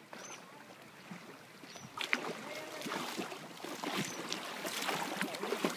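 Water splashing and sloshing in irregular bursts close to the microphone, starting about two seconds in, as someone wades or moves through shallow sea water.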